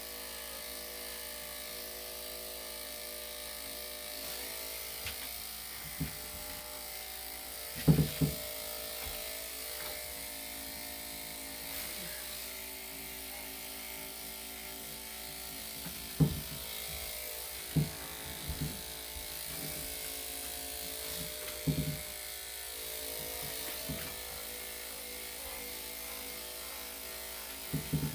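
Electric dog-grooming clippers fitted with a #5 blade running steadily as they shave a poodle-cross's coat at the front armpits. A few short knocks break through now and then, the loudest about eight seconds in.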